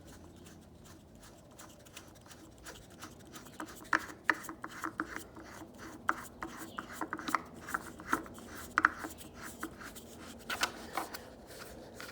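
The compressor's air filter being screwed back into its port by hand: irregular sharp clicks and scraping of the filter threads and fingers, starting about three seconds in and coming thick and fast after that.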